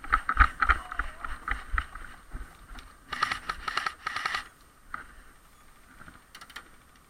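Footsteps of a player running with a body-worn camera: heavy thuds about three a second with kit rattling, easing off after about two seconds. A short flurry of sharp rustling clatter about three seconds in.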